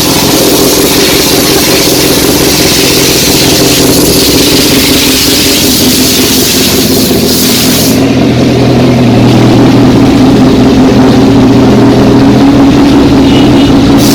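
Honda CBR1000RR sport bike's inline-four engine running loud at a steady, high engine note. About eight seconds in, the hiss above the engine note drops away while the engine note carries on.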